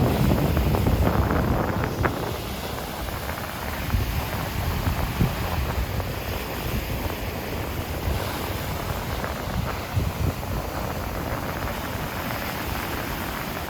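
Sea surf washing on a beach, with wind buffeting the microphone in low rumbling gusts that are strongest in the first two seconds.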